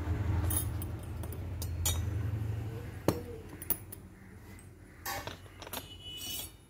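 Miniature stainless steel toy utensils clinking as they are handled, a few light separate clinks in the second half. A low steady hum runs under the first few seconds.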